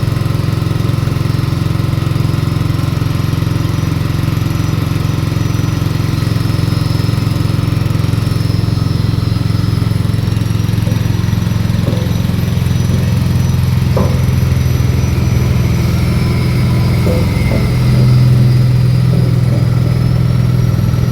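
Small petrol engine running steadily under load, driving a MAR-C A200 coconut milk press that is squeezing a fresh charge of grated coconut pulp without added water. Near the end the engine note gets a little louder and deeper as the load changes.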